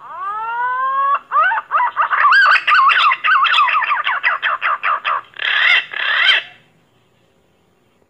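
Pink-necked green pigeon song: one rising whistled note lasting about a second, then a rapid run of wavering whistles that grow shorter and quicker, ending in two stronger notes. It stops a little over six seconds in.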